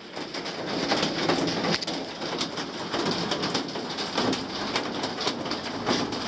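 Steady rain pattering, with irregular knocks and scuffs from people climbing across wooden beams and handling the camera.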